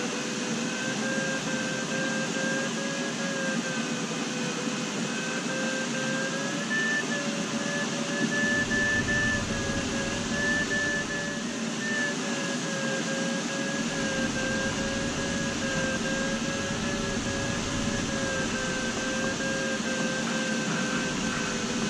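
A glider variometer's audio tone sounds steadily over the rush of air around the cockpit. Its pitch drifts slightly up and down, following the strength of the climb as the glider circles in lift.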